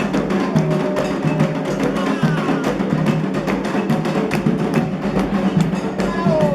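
Candomblé ceremonial percussion: drums and struck percussion playing a dense, fast beat.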